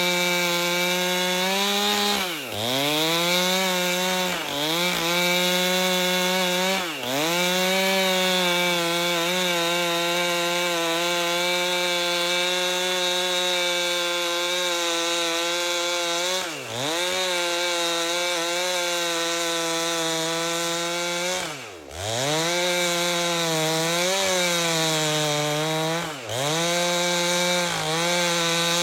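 Two-stroke chainsaw with a 30-inch bar running at high revs, ripping lengthwise through an albasia log. The engine pitch drops sharply and climbs back about six times as it bogs under load or the throttle is eased.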